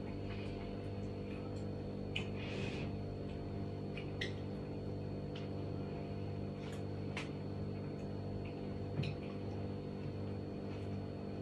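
Steady low electrical hum, with a few faint light clinks of spoons against bowls as two people eat cereal.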